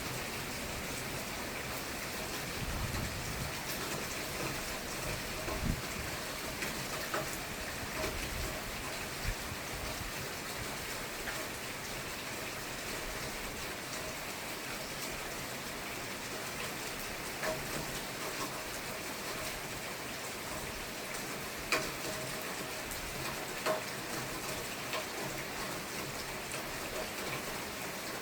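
Steady rain falling, with scattered sharper drip and tap sounds from drops hitting nearby surfaces.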